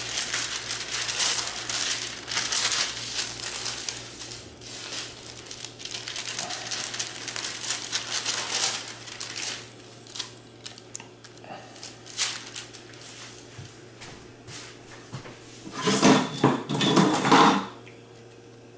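Rustling of parchment paper with light knocks of a metal sheet pan and rolling pin as a sheet of puff pastry is handled and rolled up on the pin. The rustling is dense for the first several seconds, turns to scattered small knocks, then comes back in a louder burst near the end.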